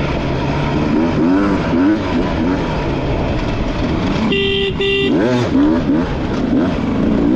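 Dirt bike engine revving up and down repeatedly, with two short horn toots about four seconds in.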